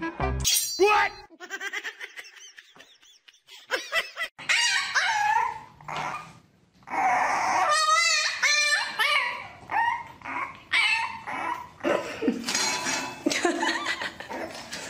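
A puppy whining and yapping in a run of short cries that waver in pitch.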